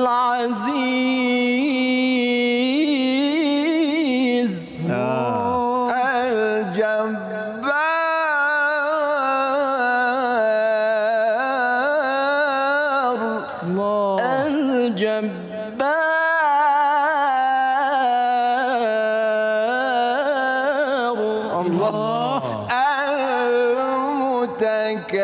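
A male reciter's voice chanting the Quran in melodic tilawah style: long held notes with wavering ornaments and turns, broken by a few short breaths.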